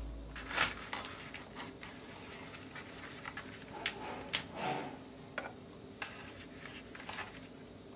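Faint food-prep handling sounds: scattered light clicks and short rustles as pickled red cabbage is forked onto a flatbread wrap and a knife cuts through the wrapped flatbread on a wooden board. The longest rustle comes near the middle.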